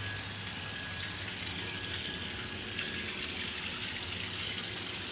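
Steady rush of falling water splashing, growing a little louder about three seconds in.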